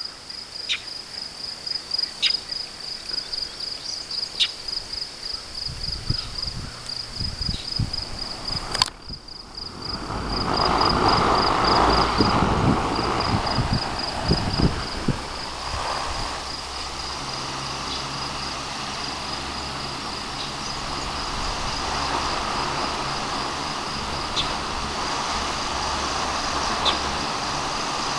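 Insects chirp in a fast, steady high pulse. About nine seconds in there is a click, and the 1930s Emerson 75048 16-inch DC fan, running on rectified AC, spins up and then runs steadily with a motor hum and the whir of its steel blades.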